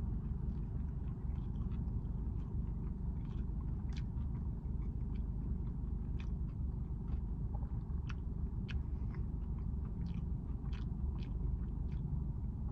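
A person chewing a bite of a fried chicken sandwich with a stiff bun: faint, irregular crunches and mouth clicks over a steady low hum.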